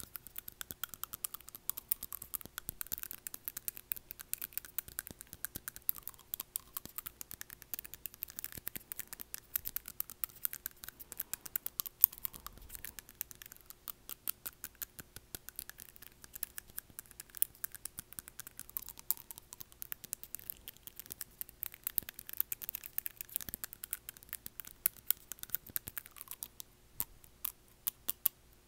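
Acrylic nail tapping and scraping against front teeth, close to the microphone: a rapid, uneven run of small sharp clicks and scratches.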